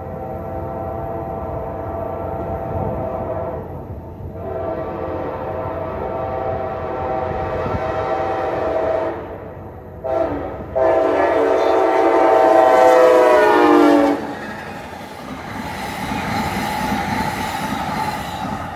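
Multi-chime locomotive horn sounding the grade-crossing signal: two long blasts, a short one, then a final long blast, the loudest, as the train nears the crossing. Near the end a train is heard passing.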